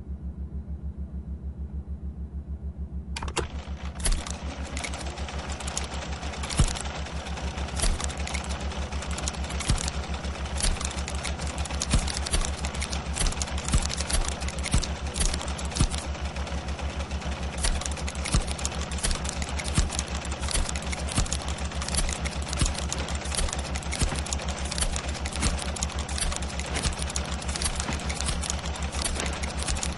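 Film sound effects of clattering machinery: a fast, steady mechanical ticking pulse, joined about three seconds in by dense clicking and rattling with sharper clicks every second or two.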